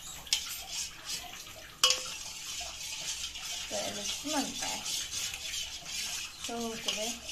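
Metal spoon stirring a thin custard-powder mixture in a stainless steel pot, scraping in repeated strokes, with one sharp clink against the pot just under two seconds in.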